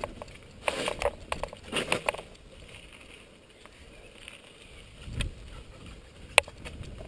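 Mountain bike rolling down a rough dirt trail, its frame and chain clattering in two short bursts over bumps about one and two seconds in, with tyres on dirt between and a single sharp click near the end.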